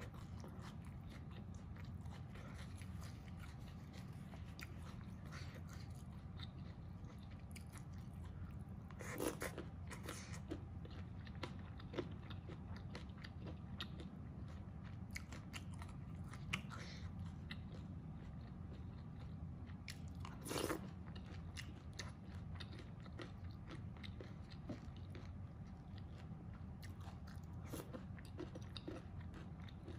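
Close-miked eating sounds of a person chewing mapo tofu with rice: many small wet clicks and smacks, with two louder bursts about nine and twenty-one seconds in, over a steady low hum.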